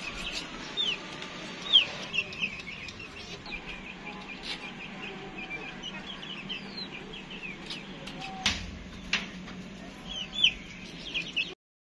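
Pet birds chirping: short high calls, over and over, with a louder run near the end. A knock about eight and a half seconds in and a sharp click just after.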